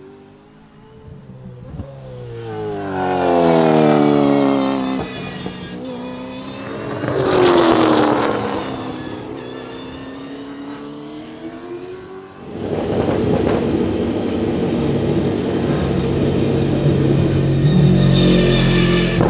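V8 Supercars race cars driving past on the circuit, each engine note falling in pitch as the car goes by, with two loud passes in the first half. About two-thirds of the way in, a louder, steadier V8 engine note takes over and carries on.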